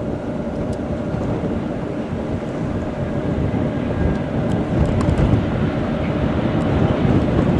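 Freight train of tank wagons hauled by an electric locomotive, rolling along the riverside line: a steady rumble of wheels on rails that grows slightly louder. It is heard from a river boat, over the boat's own steady engine drone.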